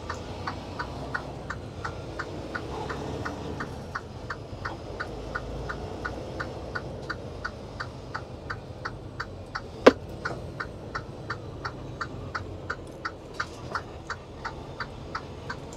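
Freightliner truck cab's turn-signal indicator ticking evenly, about two and a half ticks a second, over the low hum of the diesel engine. One sharper, louder click comes about ten seconds in.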